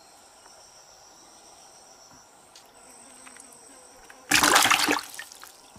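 Crickets chirping steadily. About four seconds in, a loud splash lasting about half a second as a small catfish is dropped into a plastic bucket of water, followed by a few small drips and knocks.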